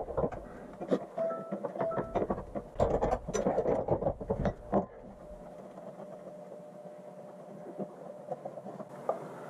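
A wrench knocking and clicking on the plastic oil filter housing cap of a 2.4L Ecotec engine as the cap is worked loose and unscrewed, with a couple of short squeaks. After about five seconds the handling stops and only a faint steady hum remains.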